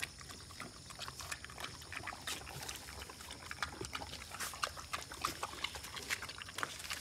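German shepherd puppy eating wet food of kibble, rice and curd from a steel bowl: irregular smacking, chewing and lapping clicks.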